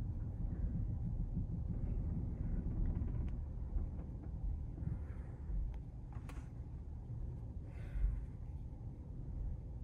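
Low steady rumble heard inside a Tesla Model S cabin as the car creeps slowly in reverse, with a single sharp click about six seconds in.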